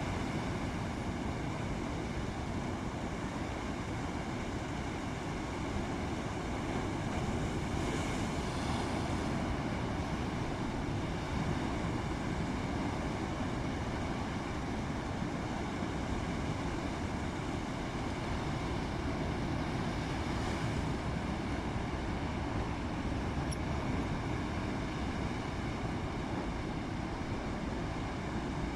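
Rough sea and wind rushing steadily, heavy with low rumble, with brief swells of spray-like hiss about eight and twenty seconds in.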